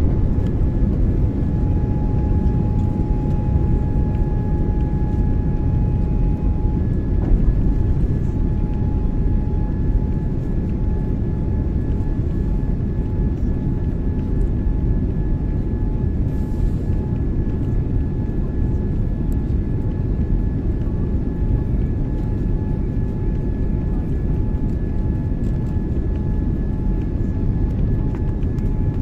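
Jet airliner cabin noise heard from a window seat during the climb after takeoff: a steady low roar of the engines and rushing air, with a faint steady whine above it.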